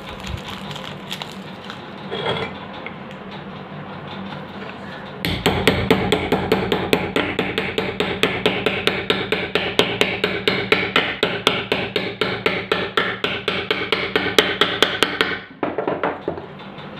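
Small hammer tapping a new ball bearing into the cast metal end cover of a fan motor: a quick, even run of light metallic taps, about five a second, that starts about five seconds in and stops about ten seconds later as the bearing seats.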